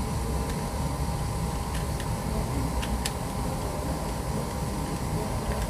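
Steady low rumble with a constant hum, over which a few faint light clicks come as the handle is screwed into a spinning reel.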